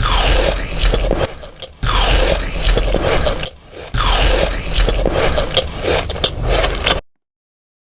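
Close, loud crunching of a person chewing crunchy food, in three bouts with short pauses between them, cutting off abruptly near the end.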